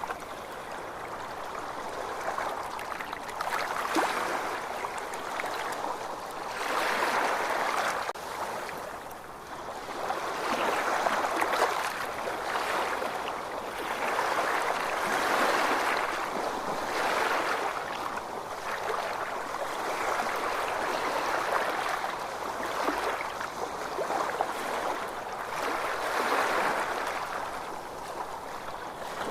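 Ocean waves washing in and out, a continuous rushing that swells and eases every few seconds.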